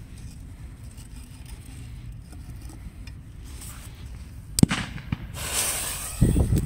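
The fuse of a firework mortar shell is lit: a sharp crack about four and a half seconds in, then a hissing fizz as the burning fuse sprays sparks from the top of the mortar tube.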